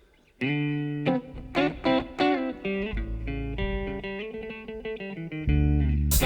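Live band's guitar playing the intro of a song, picking single notes one after another. It starts about half a second in, after a brief silence, and a deep low note comes in near the end.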